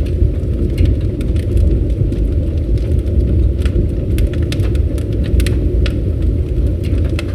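Campfire burning: a steady low rumble of the flames with frequent, irregular sharp crackles and pops from the burning wood.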